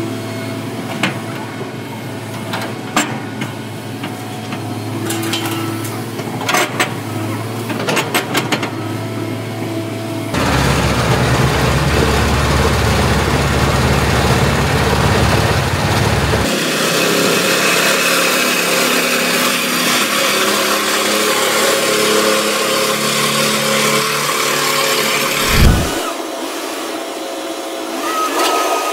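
Excavator's engine and hydraulic crusher bucket running while it crushes waste concrete railway sleepers, with sharp knocks of breaking concrete in the first several seconds. The noise jumps louder about 10 seconds in, changes again near 16 seconds, and there is one heavy thump near the end.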